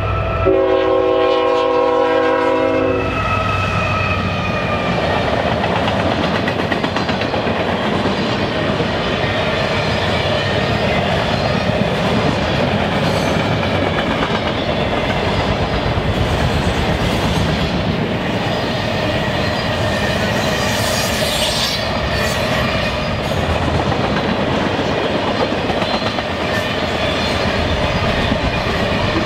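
Locomotive air horn sounding a chord for about three seconds, then a train rolling past with its wheels clattering over the rail joints.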